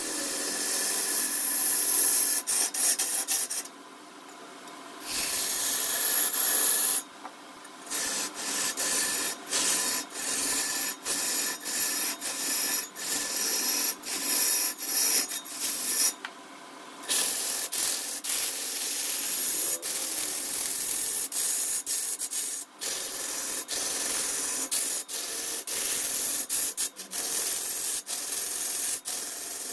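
Wood being worked on a spinning lathe: a dry, scraping hiss of a tool or abrasive against the turning wood. It is broken by many short pauses, with longer lifts off the wood about 4, 7 and 16 seconds in, while a faint steady hum carries on underneath.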